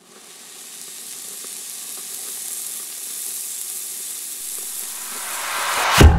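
A sizzling hiss fades in and builds gradually, with a few faint crackles. Near the end it swells into a sharp hit as distorted electric guitar music starts.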